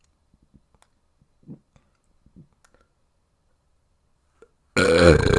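A few faint, scattered clicks, then a loud, long, low-pitched human burp that starts near the end and runs on.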